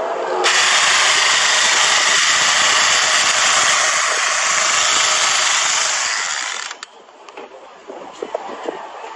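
Battery-powered chainsaw attachment mounted under a rifle barrel running: a steady whir of motor and chain that starts about half a second in and cuts off sharply near seven seconds, followed by a few light clicks.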